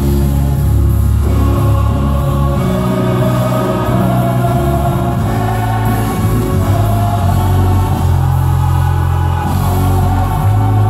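A large gospel choir singing together in held, sustained notes, with piano accompaniment.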